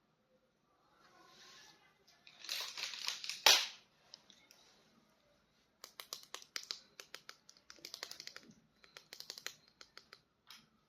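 Plastic toy packaging being handled: a burst of crinkling about two seconds in that ends in a sharp snap, then a long run of quick small clicks and taps.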